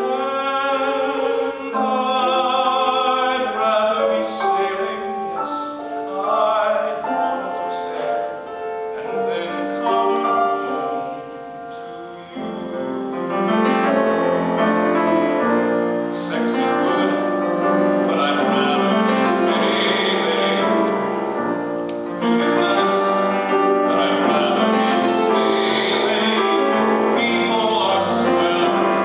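A man singing a show tune in a trained, theatrical voice with piano accompaniment, the music thinning briefly before swelling fuller about halfway through.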